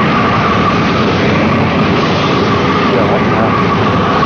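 Boat engines running steadily, with a thin steady whine over a constant rushing noise.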